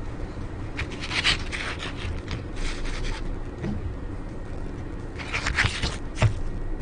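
Paper brochure rustling and sliding on a wooden table as it is unfolded and handled, in several short bursts, over a low steady background rumble.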